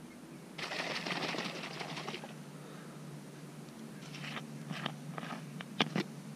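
Seasoning containers handled on a table: a rapid rattle for about a second and a half, then a few short scrapes and two sharp clicks as a plastic screw cap is twisted on a jar.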